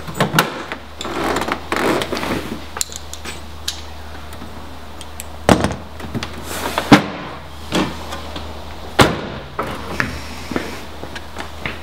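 A BMW X5's tailgate being shut amid clunks and knocks of handling around the cargo area, with hard bangs about five and a half, seven and nine seconds in, the loudest at seven. A steady low hum runs underneath.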